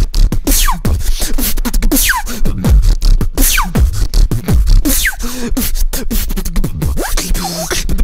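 Human beatboxing: a dense run of rapid mouth clicks and deep bass kicks, with a falling whistle-like glide repeated about every second and a half.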